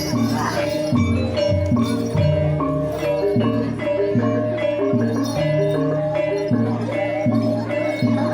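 Banyumasan gamelan music for an ebeg horse-trance dance, with pitched metal percussion ringing over a held tone and bass notes that change every second or so in a steady rhythm.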